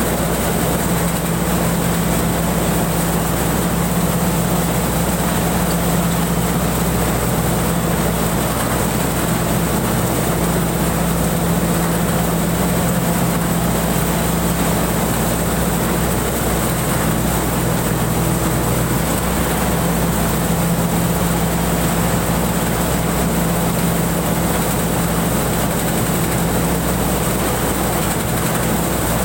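Pan Charoen rice combine harvester running steadily under load while cutting thick rice: a constant engine and threshing-machinery drone with a steady low hum and a thin high whine.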